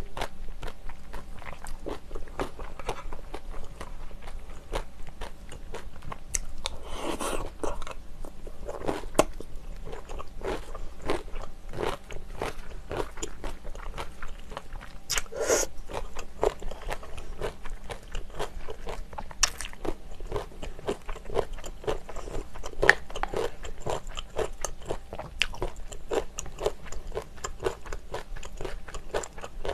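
Close-miked eating sounds: a person chewing and crunching a mouthful of spicy sundae rice soup with crisp kimchi. There are many small crackling bites, and a few louder crunches about 7 and 15 seconds in.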